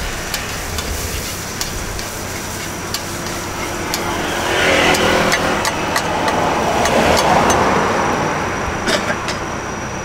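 Thai banana roti frying in oil on a street vendor's flat griddle, with many short sharp clicks of a metal spatula against the pan and a sizzle that swells in the middle. The steady running of idling vehicles sits underneath.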